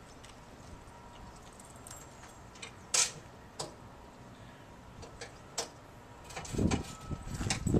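Handling noise at a school bus's rear wheel as its mud flap is lifted and the wheel area checked: a few scattered sharp clicks and knocks, the loudest about three seconds in, then low bumping and rustling near the end.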